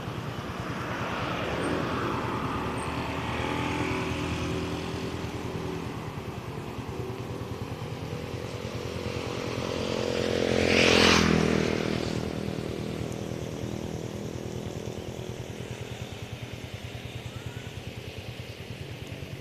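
Motor vehicle engine passing close by, building to its loudest about eleven seconds in and then fading, over a steady engine hum.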